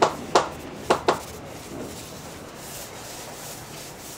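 Small paint rollers rubbing as they roll coating across a wooden boat hull. Four sharp knocks in the first second or so are louder than the rolling.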